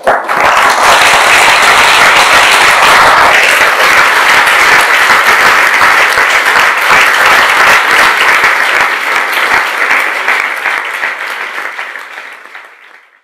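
Audience applauding, starting suddenly at full strength and dying away over the last few seconds.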